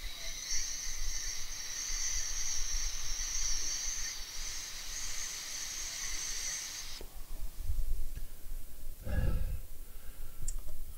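Home-built hot air soldering tool blowing air at a phone board: a steady airy hiss with a few faint whistling tones that cuts off suddenly about seven seconds in. A couple of low, muffled thuds or breaths follow near the end.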